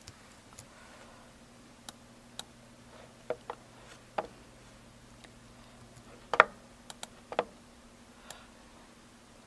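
Scattered clicks of a computer mouse and keyboard, single and in pairs, the loudest about six and a half seconds in, over a faint steady low hum.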